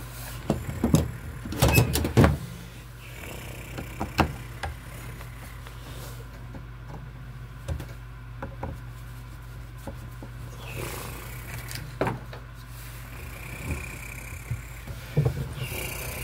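A hand screwdriver working the screws of a metal junction box, with scattered clicks and knocks from the tool and box, the loudest a second or two in. A steady low hum runs underneath.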